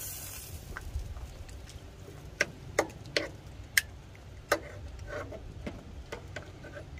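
Stainless steel tongs and a spatula clicking and scraping against a metal baking pan of steaks in marinade: a run of sharp clicks starting about two seconds in, over a low steady rumble.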